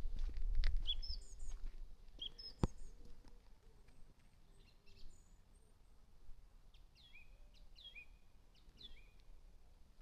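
Small birds chirping in short high calls, with a run of three similar falling calls near the end. A low rumble fades out over the first second or two, and there is a single click a little after two seconds in.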